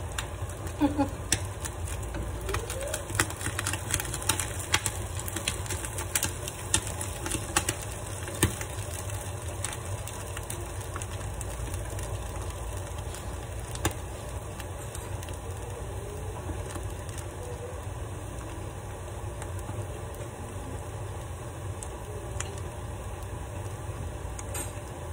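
Wooden spatula knocking and scraping against a nonstick frying pan of risotto rice, with sharp taps coming often over the first eight seconds or so and only now and then after. Under it runs a steady low rumble.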